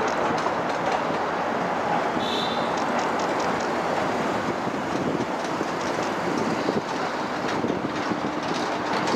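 A train hauled by the steam locomotives SO17-2359 and L-5289 crossing a steel truss bridge: a steady rumble with a fast, rhythmic clatter of wheels.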